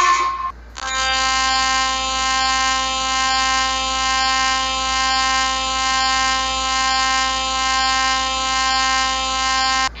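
Electronic emergency alert tone: a steady, buzzy alarm with many overtones that holds for about nine seconds, wavering slightly in loudness about once a second, and cuts off near the end. Just before it starts, the end of a different alarm breaks off in the first half-second.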